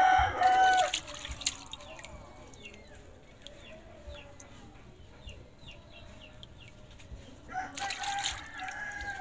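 A rooster crowing, one crow ending about a second in and a second crow near the end, with faint short bird chirps in between.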